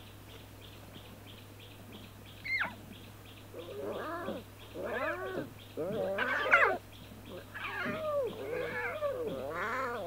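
Lion cubs calling: a quick high squeak about two and a half seconds in, then a run of rising-and-falling calls that grows louder.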